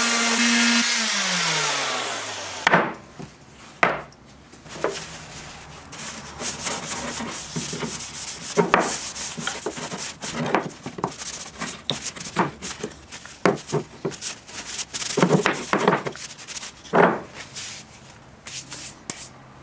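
A random orbital sander runs on the wooden mallet handle and is switched off about a second in, its pitch falling as it spins down. After that, a paper towel wipes finish onto the wooden mallet in short, scattered rubs with occasional knocks of handling.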